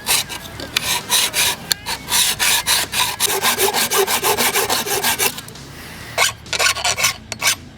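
Hand file rasping over a steel spearhead in quick, repeated strokes, pausing briefly about five seconds in, then a few more strokes near the end.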